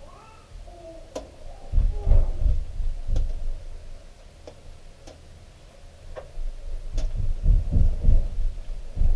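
Handling noise while quick-setting Bondo body filler is worked by hand: irregular low thumps in two bursts, with several sharp clicks between them.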